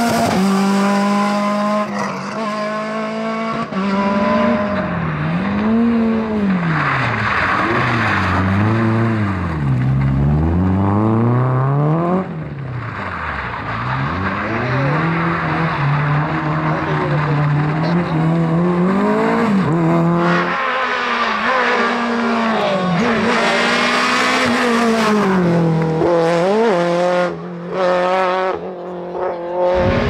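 Rally cars on a tarmac stage, several in turn, their engines revving hard, the pitch climbing and dropping over and over as they shift gears, brake and accelerate past.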